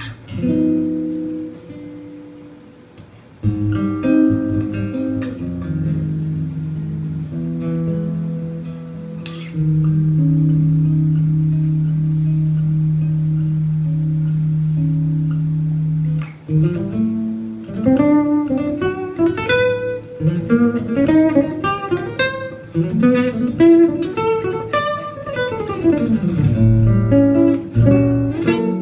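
Two acoustic gypsy-jazz guitars playing a jazz ballad duet: slow, ringing chords and long held notes at first, then, about halfway through, fast picked single-note runs over the chords.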